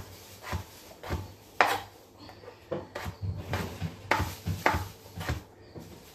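Short sharp taps and clinks of kitchen work as raw vegetables are cut and handled for frying: knife and utensils striking a board and pot, irregularly about every half second to a second.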